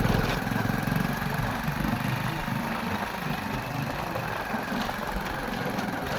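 Vehicle engine running steadily as the vehicle drives slowly along a rough, uneven track.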